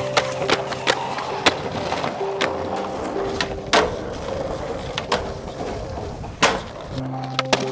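Skateboard wheels rolling on concrete, broken by sharp clacks of the board popping and landing, the two loudest about 4 and 6 seconds in, with a grind along a ledge between them. Music plays underneath.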